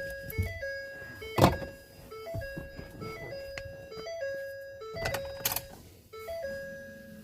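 Simple electronic tune of plain, clean notes repeating over and over, with sharp knocks at about one and a half seconds and again at about five seconds in.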